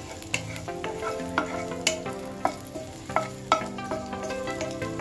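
Raisins frying in ghee in a heavy pan, stirred with a spatula that clicks and scrapes against the pan several times.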